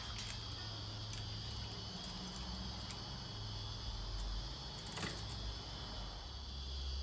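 A few sharp metallic clicks and clinks, one about five seconds in, over a steady low hum.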